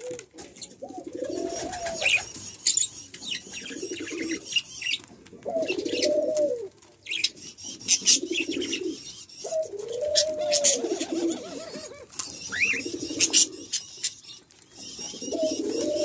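Barbary (ringneck) doves cooing: four rolling coos, each rising then falling in pitch and ending in a throbbing roll, about every four to five seconds, with thin high chirps and ticks between them.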